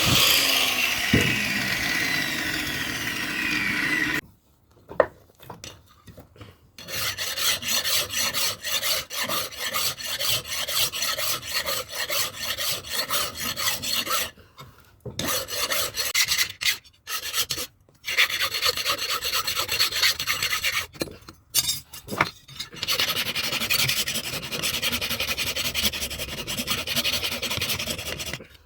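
A hand file rasping over the hardened steel of a knife blade forged from a vehicle leaf spring, in fast repeated strokes with several short pauses. Before the filing, a whirring hiss falls in pitch and stops about four seconds in.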